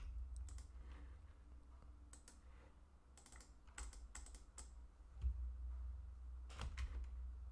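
Faint computer keyboard keystrokes and mouse clicks, a few short taps at a time in small scattered clusters, over a low steady hum.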